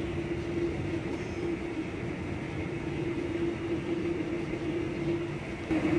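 Steady machine hum: one constant tone over an even rushing noise, unchanging throughout.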